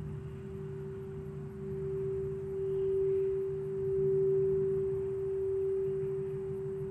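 Quartz crystal singing bowl sounding one pure sustained tone, swelling and easing slowly in loudness as it is played, over a low background rumble.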